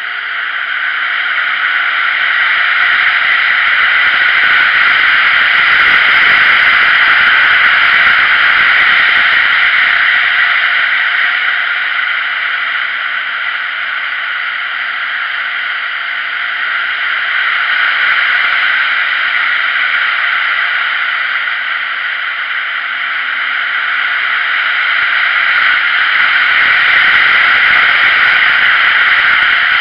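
Wind rushing over the microphone of a camera on a moving motorcycle, steady and loud, swelling and easing as the speed changes. The motorcycle's engine is faint beneath it, rising in pitch a few times.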